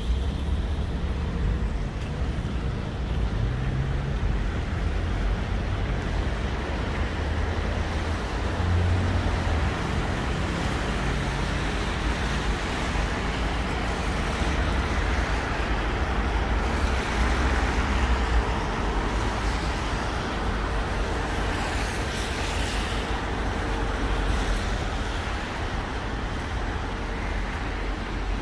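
City street traffic: cars and buses passing with a steady low engine rumble, one vehicle swelling louder about halfway through, and a brief hiss about three quarters of the way in.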